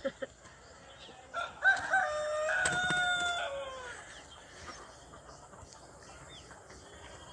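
A rooster crowing once, a long call that starts about a second and a half in and lasts about two and a half seconds, dropping in pitch at the end.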